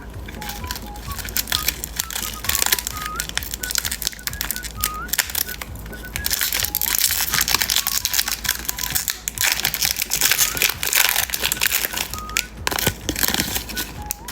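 Crinkling of an umbrella-shaped candy's wrapper as it is unwrapped, heaviest in the middle stretch.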